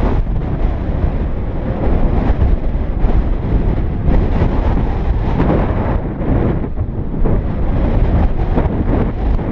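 Wind buffeting the microphone of a camera riding on a moving bicycle: a loud, steady rush of noise, deepest at the low end, rising and dipping slightly with the gusts.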